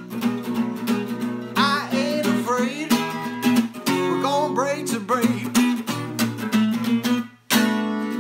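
Acoustic guitar being strummed, with a man singing along over the chords. The playing stops for a moment near the end, then a fresh strum rings out.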